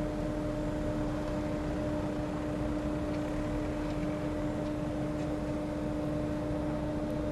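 Steady hum of a Stadler FLIRT electric train, with a constant tone held over a continuous noise bed and a few faint ticks.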